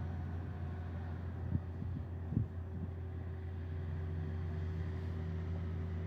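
Steady low engine drone with a faint constant hum over it, and two short dull thumps about one and a half and two and a half seconds in.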